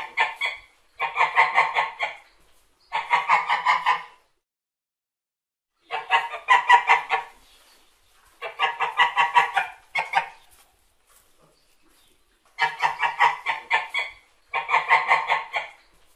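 Domestic white geese honking in quick runs of several honks, each run lasting about a second, repeated with short pauses and a longer pause a few seconds in.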